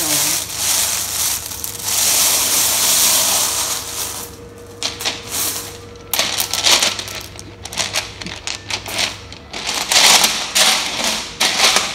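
Loose polished pebbles of a stone-bath bed shifting and clattering: a rustling hiss for about the first four seconds, then scattered sharp clicks of stone on stone.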